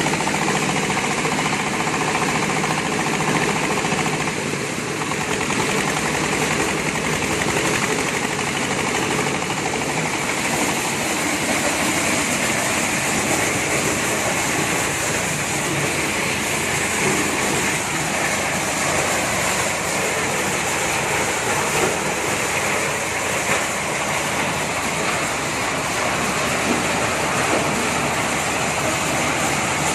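Engine-driven corn sheller for unhusked ears running steadily, a constant loud mechanical noise of engine and threshing drum that does not change.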